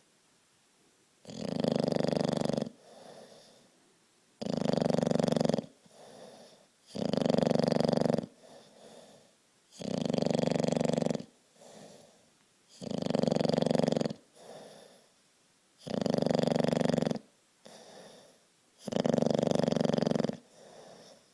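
A bulldog snoring in its sleep: seven loud, rasping snores about every three seconds, each followed by a fainter, shorter breath sound.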